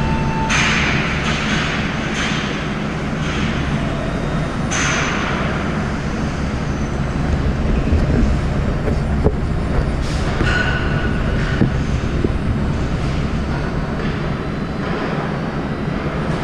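Steady low mechanical rumble of a running vehicle, with brief hissing swells near the start, about five seconds in and about ten seconds in.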